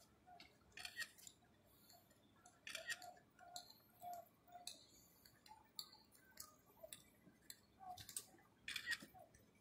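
Near silence: faint scattered ticks and clicks over outdoor room tone.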